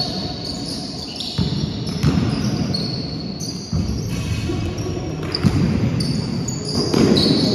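Sounds of a basketball game on a sports-hall court: the ball bouncing with several sharp thumps, and many short, high-pitched squeaks like trainers on the hall floor, over the steady din of the hall.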